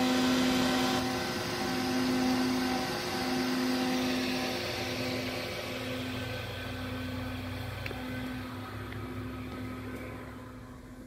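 Running noise from an open, powered Haas CNC control cabinet: a steady hiss with a low humming tone that pulses on and off roughly once a second. It grows fainter toward the end.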